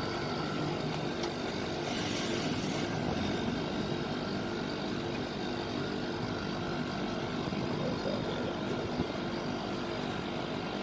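Split air conditioner outdoor unit running, its compressor and fan giving a steady hum with several steady tones, while its back pressure is checked. A brief hiss about two to three seconds in.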